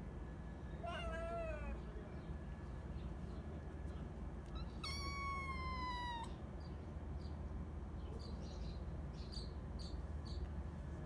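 Young cats meowing: a short meow about a second in, then a longer, higher meow that falls slightly in pitch around five seconds in.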